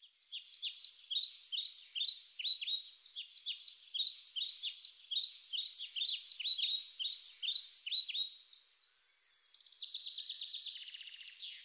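Birds chirping over and over, in high, quick, falling chirps that overlap one another. About nine seconds in, a faster, buzzy trill of rapid clicks takes over.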